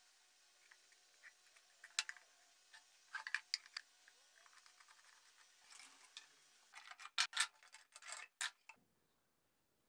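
Light taps and clicks of wood and a small metal hand tool as the wooden top is fitted onto a mandolin body and worked around its edge: a few scattered knocks, a quick cluster about three seconds in, and a busier run of clicks a little before the end, then near silence.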